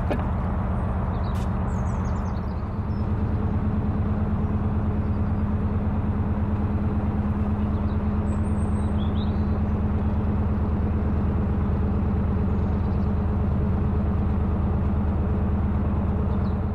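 Narrowboat's diesel engine running with a steady low throb, growing louder about three seconds in as the throttle is opened to move off. A few faint bird chirps sound over it.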